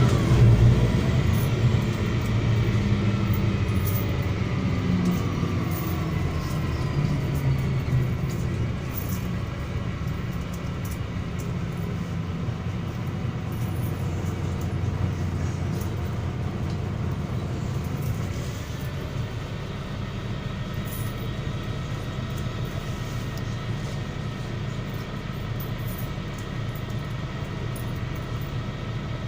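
MAZ-103.075 city bus in motion: a steady low engine and drivetrain rumble whose pitch glides as the bus changes speed over the first several seconds and again about two-thirds of the way through, then settles. Faint rattles tick over the rumble.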